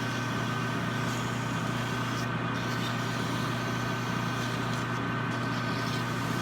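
Metal lathe running steadily at low speed, its motor and drive humming evenly, with a hiss of sandpaper against the spinning steel ball handle that briefly thins out a couple of times.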